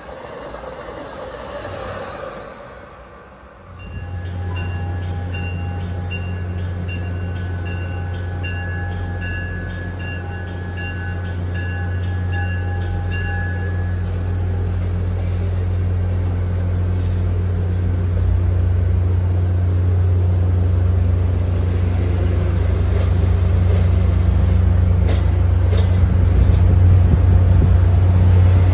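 Train on the line: a steady low drone that slowly grows louder, with a bell ringing about twice a second for some ten seconds from about four seconds in. A few clicks come near the end.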